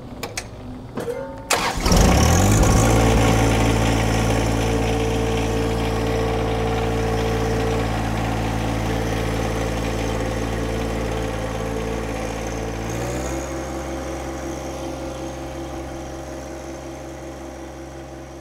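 John Deere 1025R subcompact tractor's three-cylinder diesel engine being started: it catches about two seconds in and then runs steadily. About thirteen seconds in its note drops slightly, and the sound fades gradually as the tractor drives off.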